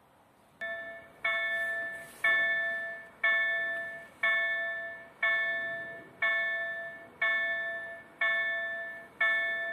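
Automatic level crossing's warning bell starting up, ringing about once a second with each strike fading away, the first couple softer. It sounds as the crossing activates to warn of an approaching train.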